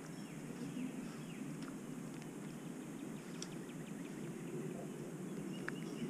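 Steady low wind rumble on the microphone, with short falling bird chirps every so often.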